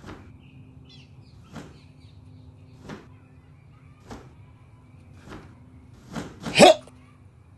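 Taekwondo uniform (dobok) snapping with each block and punch of a basic form: a sharp crack about every second and a quarter, with a louder, longer one about six and a half seconds in. Faint bird chirps behind.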